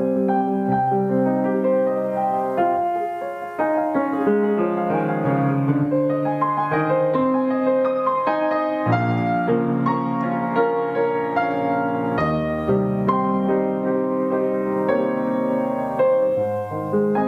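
Background music: a soft piano piece playing sustained notes and chords.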